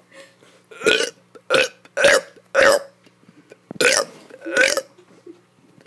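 A kid burping: six short burps in quick succession over about four seconds, coming roughly in pairs.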